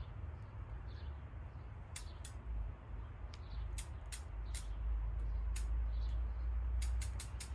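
Bicycle chain and drivetrain clicking as a new chain is worked onto the sprocket: scattered single metallic clicks, then a quick run of ratchet-like ticks near the end. A low handling rumble runs underneath.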